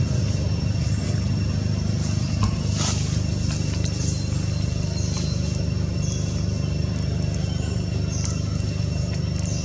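Steady outdoor background: a constant low rumble with a thin high-pitched whine held over it, and a few short high chirps here and there.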